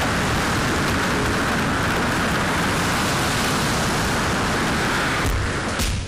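Steady, loud rush of wind and churning sea heard from aboard a sailing yacht in heavy weather. About five seconds in it gives way to music with drum hits.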